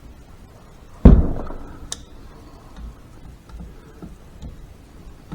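Hand tools at work on a Harley five-speed transmission case's bolts: a single heavy metal clunk about a second in that rings off briefly, a sharp click a second later, then faint light ticks.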